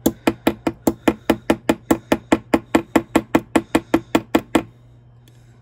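Ball-peen end of a chasing hammer lightly tapping a wire rivet against a steel bench block, peening the rivet head over the copper sheet. Quick even taps, about six a second, that stop about four and a half seconds in.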